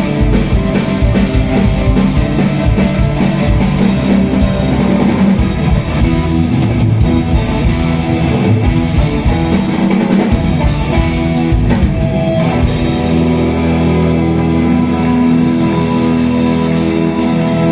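Rock band playing drum kit and guitar. The dense drumming drops away about twelve seconds in, leaving held chords ringing.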